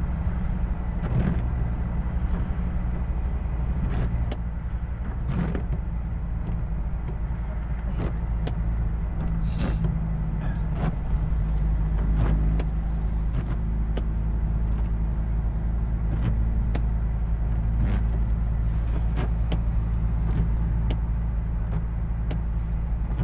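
Steady low engine and tyre drone heard from inside a car driving on a wet road, with scattered sharp ticks through it.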